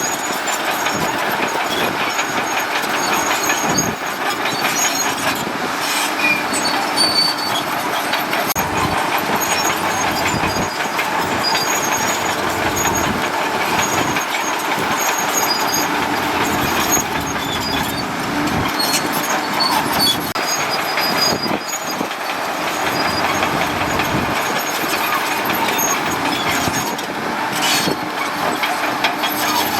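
Heavy earthmoving machinery running steadily, with a constant metallic clatter and occasional high squeaks.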